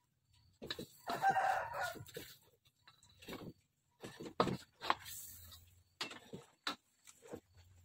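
A rooster crows once, about a second in, the loudest sound here. Around it a spatula scrapes and clatters against a wok as food is scooped out.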